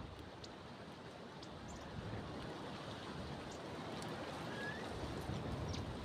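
Rushing wind noise on the microphone, slowly growing louder, with a few faint, very short high chirps from small birds scattered through it.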